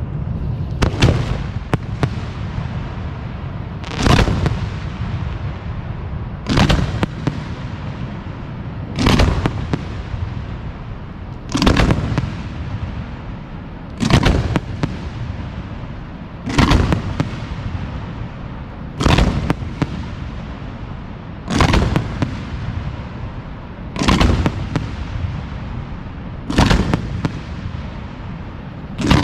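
Aerial firework display shells of 4 to 6 inches bursting one after another, a dozen loud bangs evenly spaced about every two and a half seconds, each with a short echoing tail.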